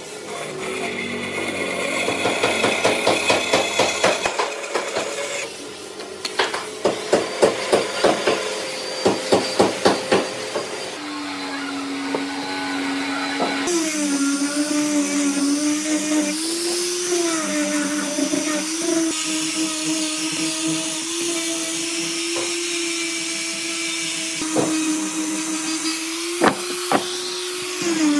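Woodworking tools in a run of short edited shots. First come rhythmic scraping strokes, then a quick series of sharp knocks, then a small power tool's motor running with a steady hum whose pitch wavers slightly.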